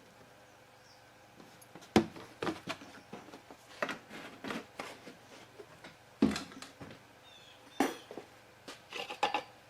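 A series of separate knocks and light clatters, a second or so apart, from things being handled and set down during oil-change work; the sharpest knock comes about two seconds in.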